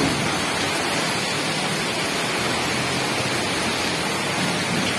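Torrential rain pouring onto a flooded street, a steady even hiss.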